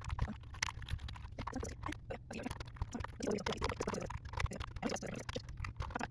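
Computer keyboard keys pressed one after another in quick, irregular clicks, each key tried in turn to check whether any are still sticky after cleaning.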